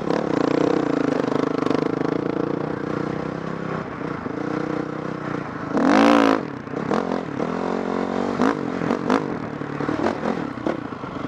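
Dirt bike engine running, then revved hard about six seconds in as the bike pulls away, its pitch rising and falling as it rides across sand, with a few short clattering knocks.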